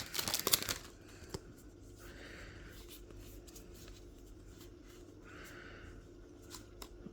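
Pokémon trading cards being handled: a brief rustle at the start, then quiet sliding of cards past one another with faint clicks, two longer soft slides in the middle.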